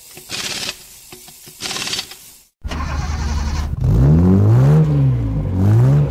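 Intro sound effects: rapid mechanical clicking with two short whooshes, then after a brief silence about two and a half seconds in, a car engine starts and revs up and down twice.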